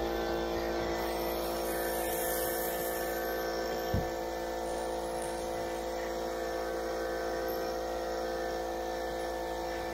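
Steady motor-like hum made of many even tones, over soft scratching of 400-grit wet-and-dry sandpaper rubbed by hand across a truck's painted roof. A brief low thump about four seconds in.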